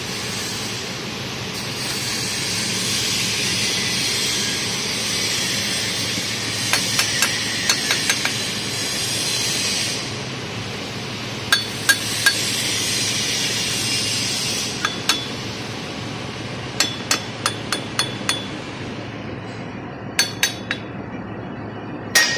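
Sharp metallic clinks of a hammer on steel pipe, coming in short quick runs, over stretches of steady high hiss.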